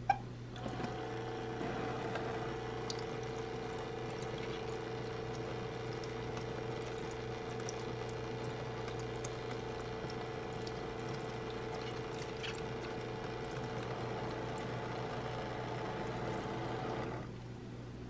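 A toy play sink's faucet switched on with a click, then its small electric pump hums steadily while water runs from the spout onto hands and a lemon. The pump and water cut off suddenly near the end.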